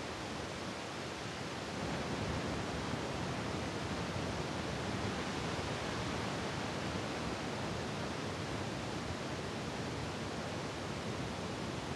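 Strong storm wind and heavy rain: a steady rushing noise with no pauses, swelling slightly about two seconds in.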